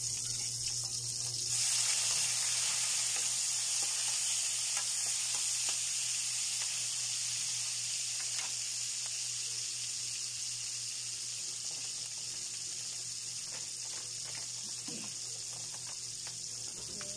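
Sliced tomatoes and onions sizzling as they hit hot oil and garlic in a wok over a high flame. The sizzle jumps up about a second and a half in, then slowly dies down, with a few light spoon clicks and a low steady hum underneath.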